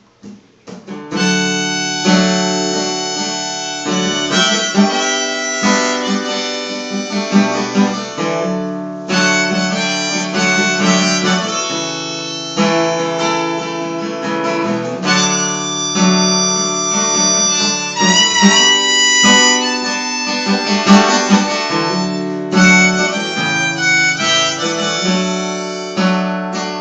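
Harmonica playing chords and melody over strummed acoustic guitar, starting about a second in: the song's instrumental introduction, before the vocals come in.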